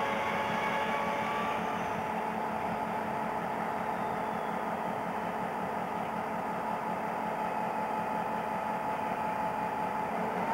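Diesel freight locomotive engine running steadily as the train approaches slowly, a steady drone with a faint whine.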